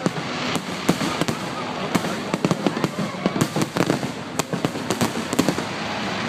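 Aerial fireworks going off in a rapid, irregular string of bangs and crackling bursts, several a second.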